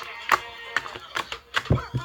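Music with a series of irregular sharp taps, and a heavier thump near the end.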